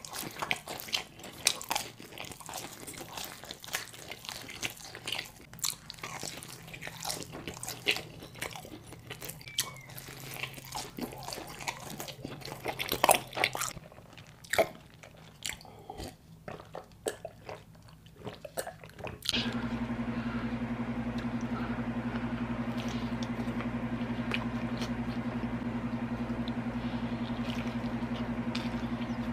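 Close-miked crunching and chewing of pizza crust, bite after bite, going quieter for a few seconds. About two-thirds of the way through, a steady, constant low hum cuts in, with only faint chewing clicks over it.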